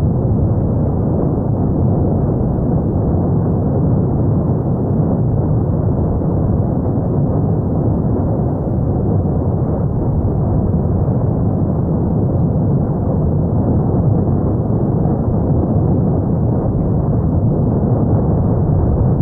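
Cumbre Vieja volcano erupting: a steady, deep rumbling roar with no single blast standing out.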